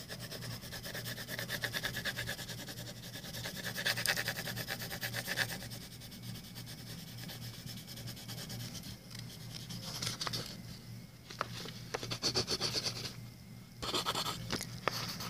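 Pencil shading on paper: quick back-and-forth strokes of the graphite rubbing and scratching across the page. The strokes come in spells, with short pauses in the second half.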